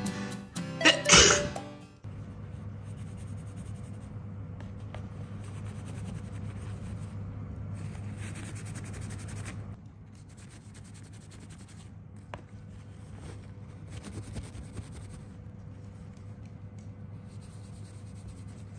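A single loud sneeze about a second in, as background music ends, followed by a faint steady low hum.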